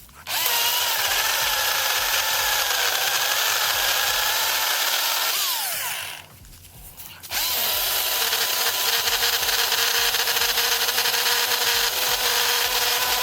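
Husqvarna 225i battery chainsaw running in two long bursts, each of about five to six seconds, cutting wood. Its electric motor whine wavers in pitch under load in the first burst and winds down before the second starts. The chain is due for sharpening.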